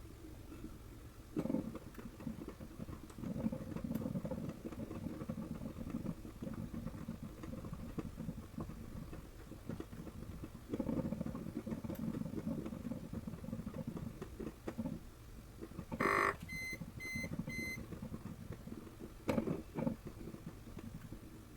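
Panasonic NC-A58 coffee maker running with uneven low rumbling. About 16 seconds in there is a short sound, then three quick electronic beeps, and two sharp clicks follow near the end. The audio plays at double speed.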